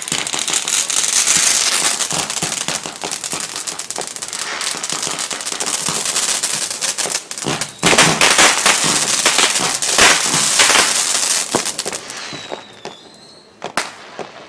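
Fireworks crackling and popping in a dense, rapid stream, with a few louder bangs in the middle. After about twelve seconds the crackle dies away, leaving scattered pops and a short high whistle.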